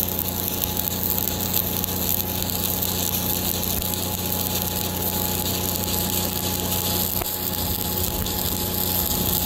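Shielded metal arc (stick) welding with a 1/8-inch ESAB 7018 electrode at about 124 amps: the arc crackles and sizzles steadily as the bead is run. Underneath it, the Lincoln 305D engine-driven welder powering the arc hums steadily.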